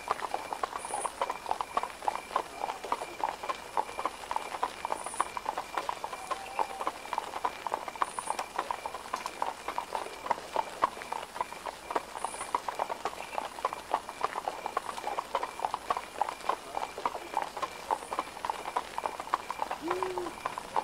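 Horse hooves clip-clopping steadily on a hard surface, a dense, continuous run of many hoof strikes a second.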